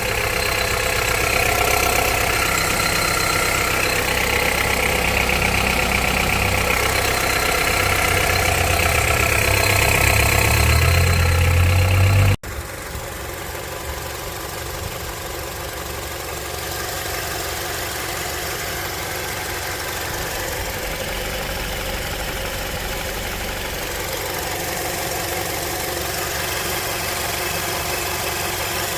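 Honda CR-V's 2.4-litre four-cylinder engine idling cold with a diesel-like clatter: the cold-start knock the owner has been tracking since about 100,000 km. About twelve seconds in the sound cuts abruptly to a quieter, steady idle.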